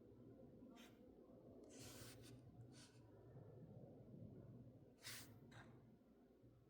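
Near silence broken by a few brief, faint scratchy rustles, the clearest one about five seconds in.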